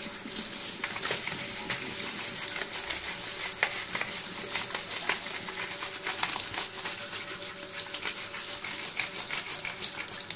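Toothbrush scrubbing a wet computer keyboard under running tap water: a steady watery hiss with rapid scratchy bristle strokes across the keys.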